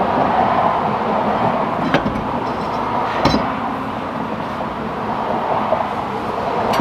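Steady rushing background noise with two sharp metallic clinks, about two and three seconds in, as metal brake parts are handled and set down.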